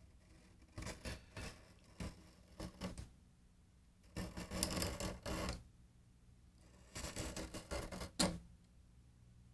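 An X-Acto knife scraping old glue out of the binding channel on the edge of a 1956 Martin D-21 acoustic guitar, in three bursts of quick scratchy strokes, each a second or two long.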